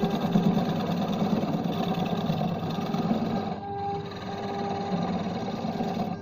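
Wood lathe running with a hand-held turning tool cutting into a large spinning wooden disc: a steady machine hum under the scraping noise of the cut. The noise eases a little about halfway through, leaving the steady hum more prominent.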